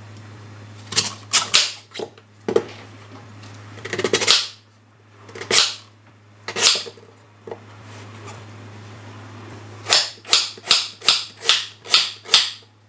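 Kitchen knife slicing through a large, crisp Korean radish and striking a wooden cutting board. First come scattered single cuts, then near the end a quick run of chops at about three a second.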